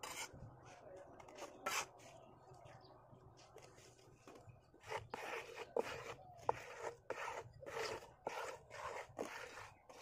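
A flat hand tool scraping damp cement-sand mix across a metal ventilator-grille mould, striking off the excess. The strokes are faint and sparse at first, then come as short repeated scrapes about twice a second through the second half.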